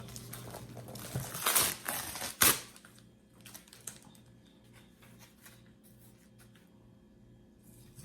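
Rustling, crinkling and scraping of gloved hands handling potting mix and a plant pot, loudest about a second and a half in and ending in a sharp knock; then mostly quiet with a faint steady low hum.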